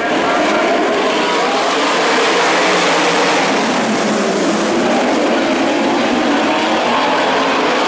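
A pack of winged sprint cars running together on a dirt oval: many V8 engines blend into one loud, steady roar of engine noise.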